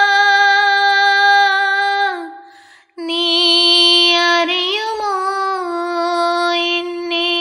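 A woman's voice singing long held notes. The first note fades away about two seconds in, and after a short pause a new note begins, wavers briefly in pitch, then holds steady.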